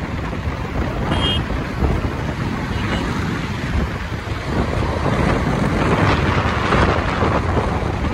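Wind buffeting the microphone of a moving two-wheeler, with a steady rush of road and traffic noise.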